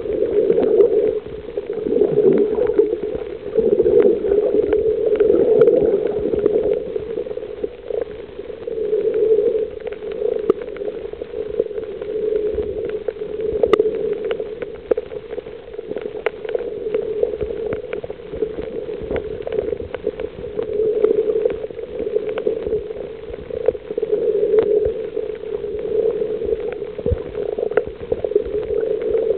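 Muffled underwater water noise swelling and fading every second or two as the swimmer moves, with scattered sharp clicks throughout.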